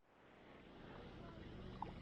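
Near silence: the sound cuts off abruptly, then a faint outdoor background hiss slowly fades back in.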